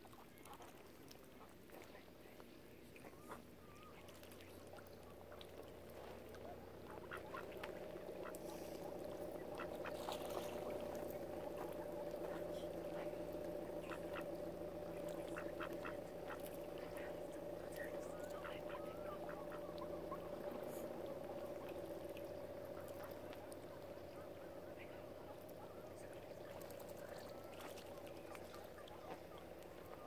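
Ducks quacking, over a steady drone that swells over the first ten seconds or so and then slowly fades.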